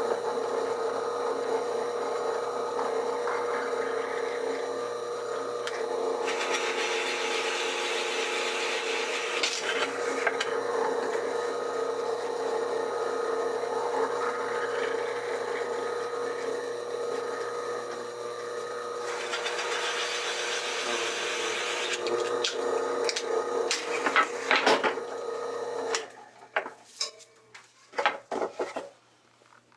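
Drill press running with a steady motor hum while a large bit bores holes through a wooden board, the cutting rising into a louder rasp twice. Near the end the motor stops, followed by a few knocks of the board being handled.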